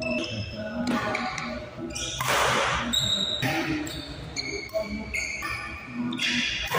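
Doubles badminton rally: rackets smacking the shuttlecock at irregular intervals, with short high squeaks of shoes on the court floor between the hits.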